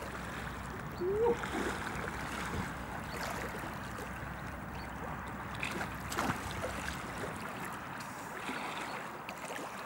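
Rhine river water rushing and lapping as a steady wash of noise, with a low rumble underneath that drops away about seven seconds in. A short rising call sounds about a second in.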